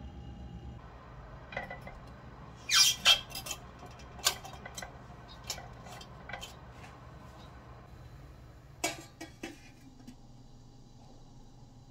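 Ceramic plate and stainless steel steamer pot clattering as the plate is set into the steamer: a quick run of sharp clinks and clanks about three seconds in, scattered single knocks after, and a few more clinks near the end.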